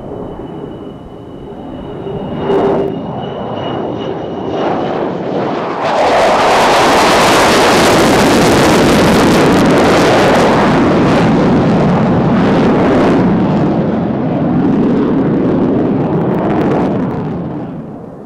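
Twin J79 turbojets of an F-4 Phantom on a slow, gear-down pass, with a high turbine whine at first. About six seconds in the jet noise jumps sharply as power comes up, stays loud, and fades near the end as the jet pulls away.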